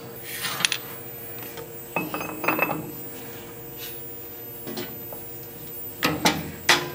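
Metal clinks and knocks as a long metal bar is handled and set into a steel milling vise on the mill table, a few separate clinks with a quick cluster near the end. A faint steady hum runs under the middle of it.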